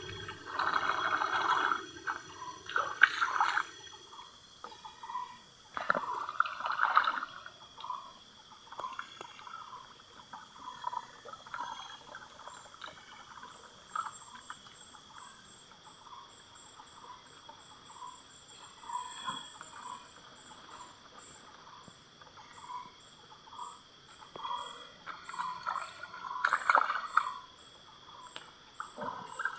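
Water sloshing and trickling in a gold pan as material is washed, in a few louder bursts near the start, about six seconds in and near the end. A steady high chirring of insects sounds throughout.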